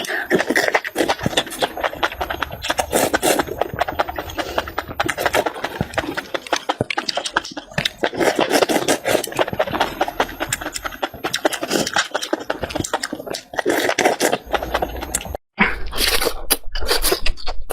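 A person eating close to the microphone: wet chewing with many small mouth clicks and breathy smacking, broken by a brief gap about fifteen seconds in.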